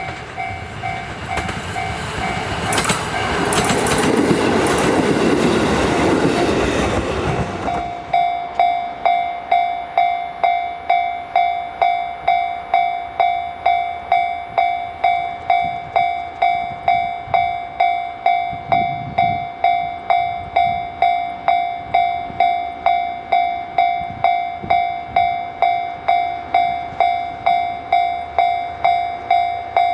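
A JR Kyushu KiHa 125 diesel railcar passes close by, loudest four to six seconds in, and cuts off abruptly about eight seconds in. A Japanese level-crossing alarm bell rings through it and then on alone in a steady rhythm of a little under two strikes a second.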